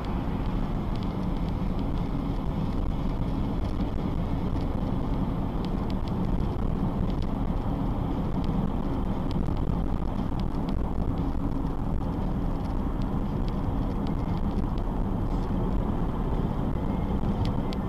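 Steady road noise of a car driving on a wet road: engine and tyre rumble heard from inside the cabin through a dashcam's microphone.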